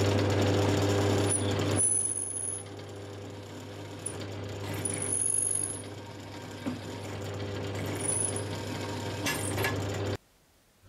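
Bench drill press running, its twist bit cutting into the rusty metal head of an old hand drill: a steady motor hum that is loud at first, quieter after about two seconds, and stops abruptly near the end.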